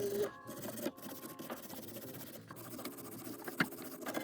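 Faint scratching and scraping as a corroded car battery terminal connection is worked on to clean it and make better contact, with a few small clicks.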